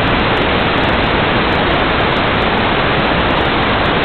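Steady loud hiss of static from an analog FPV video receiver's audio channel, with no clicks or changes: the quad's video signal has broken up and been lost.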